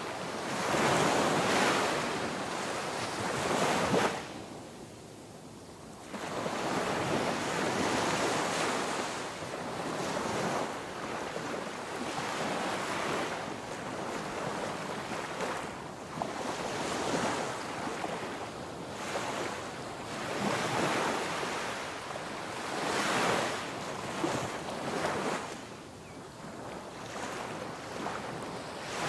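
Ocean waves breaking and washing on a shore, swelling and falling back every few seconds, with a brief lull about four seconds in.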